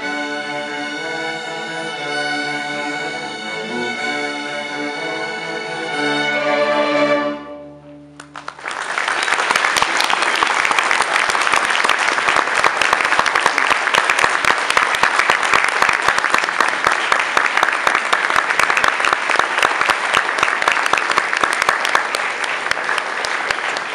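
A string orchestra of violins, violas and cellos plays its closing bars, swelling into a full final chord that is cut off about seven seconds in. After a brief pause the audience breaks into steady applause that lasts to the end.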